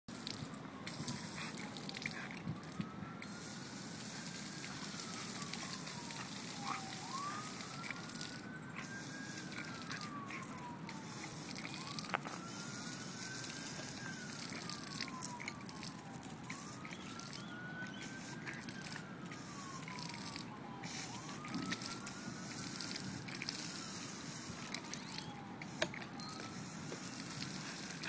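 A faint siren wailing, its pitch rising and falling slowly about once every four seconds, over a steady hiss.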